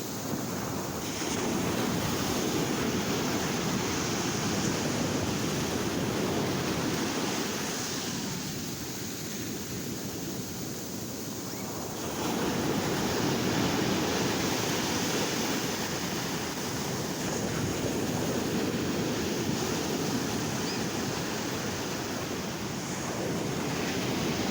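Ocean waves breaking and washing up the shore in a steady surf, with a lull about a third of the way through before the next wave swells in, and some wind noise on the microphone.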